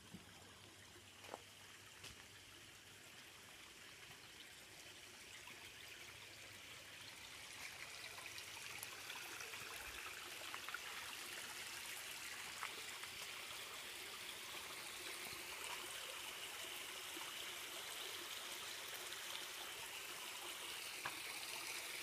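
Shallow water trickling and running over stones in a man-made garden creek, a steady faint flow that gradually gets louder.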